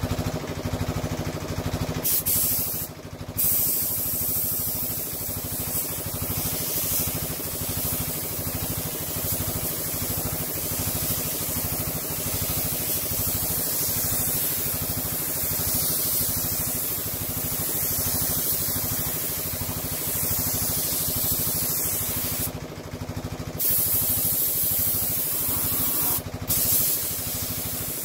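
Compressed-air paint spray gun hissing as a coat of paint goes onto a van panel, the trigger let off briefly three times, over the steady running of an air compressor.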